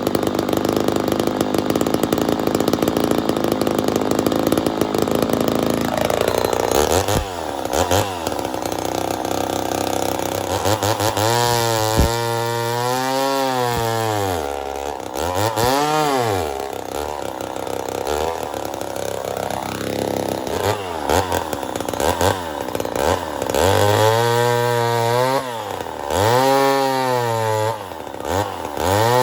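Ported Poulan 245A two-stroke chainsaw held at high speed for about six seconds, then dropping off and being revved up and down repeatedly, the engine note rising and falling several times.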